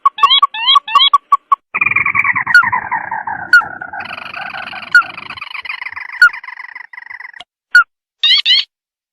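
Recorded calls of a rice-field crake ('tikusan mata merah') played as a bird lure. A few quick, rising notes give way, about two seconds in, to a long chattering trill that falls in pitch for about five seconds, with sharp clicks every second or so. Three short rising notes come near the end.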